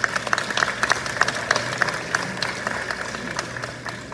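Audience applauding, many hands clapping that thin out and fade near the end.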